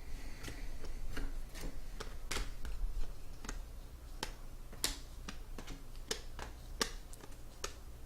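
Trading cards being handled and flipped through: a string of irregular light clicks and snaps as the cards flick against each other, over a steady low hum.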